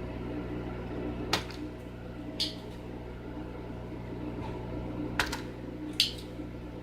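Spring-loaded desoldering pump clicking in two pairs: each pair is a cock and then a sharp snap as it fires to suck molten solder from a switch pin. Under it runs a steady electrical hum.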